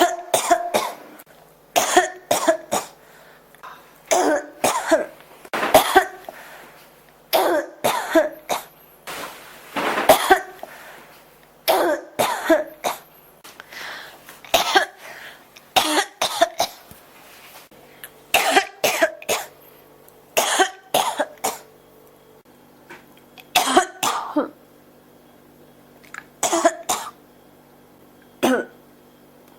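A person in a coughing fit that won't stop, coughing in clusters of two to four sharp coughs every couple of seconds, with two brief lulls near the end.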